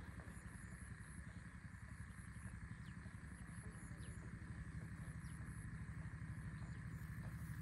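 A low, steady rumble that slowly grows louder, under a steady high buzz.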